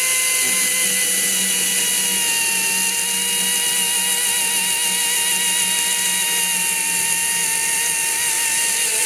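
Husqvarna 536 Li XP 36-volt battery chainsaw cutting through a log at full speed: a steady high electric whine whose pitch sags slightly and wavers as the chain bites into the wood.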